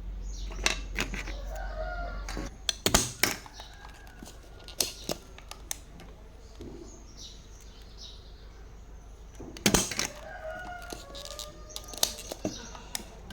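Sharp clicks and knocks of small hard parts being handled, loudest about three seconds in and again near ten and twelve seconds, with a chicken calling in the background.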